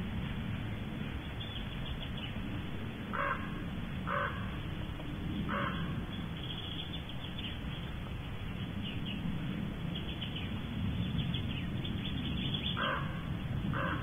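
Short harsh bird calls, a run of three about a second apart and later two more, over a steady low hum.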